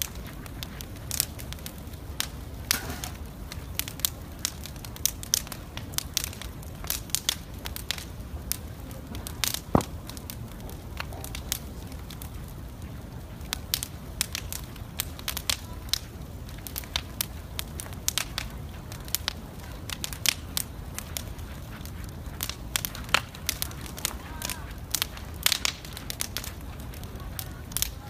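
Bonfire of stacked logs and bamboo poles burning, with many sharp, irregular crackles and pops over a low steady rumble.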